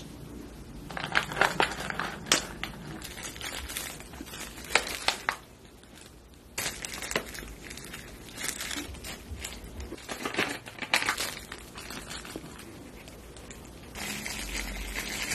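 Plastic cat-treat packaging crinkling and crackling in two bouts of sharp clicks, then a softer steady rustle near the end as dried flakes are shaken from a packet.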